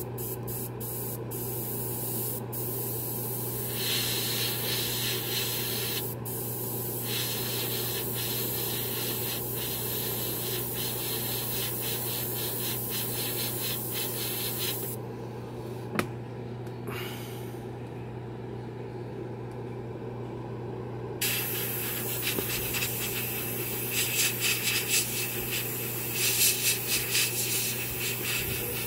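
Airbrush spraying metallic paint onto a black-primed spoon: a hiss of air and paint in several bursts as the trigger is worked, with a long pause in the middle and a fluttering run near the end, over a steady low hum.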